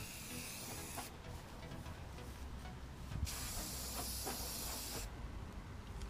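Aerosol spray-paint can spraying in two bursts: a steady hiss that stops about a second in, then a second hiss of about two seconds in the middle.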